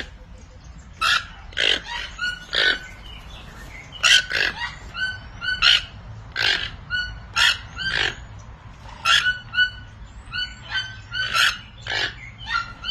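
Birds calling in a run of short, harsh calls, well over a dozen of them at irregular intervals of about half a second to a second.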